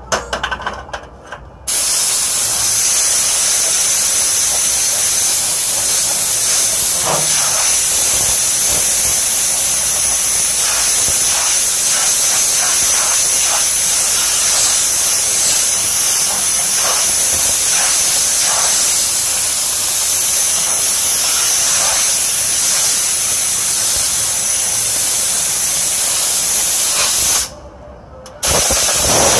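Compressed nitrogen blowing from a hose nozzle to clear out an air-conditioner condenser coil: a loud, even hiss that starts about two seconds in and cuts off sharply a couple of seconds before the end.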